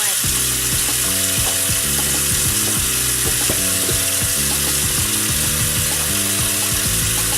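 Steady wet hiss of a sneaker being cleaned with soap and water, over background music with shifting low notes.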